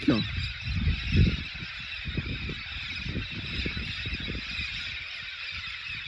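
A large flock of red-spectacled amazons (papagaio-charão) calling together, a dense continuous din of many overlapping squawks from birds gathering and flying over the trees, with low rumbling underneath.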